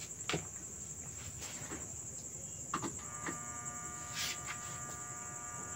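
A few switch or handling clicks, then from about three seconds in the 20-inch electric floor fan's motor running with a steady whine of several tones: the fan working again with its blown fuse replaced.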